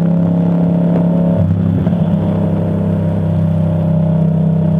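Yamaha MT-07's parallel-twin engine, fitted with an Akrapovic exhaust, running steadily under way, with a brief change in the engine note about a second and a half in.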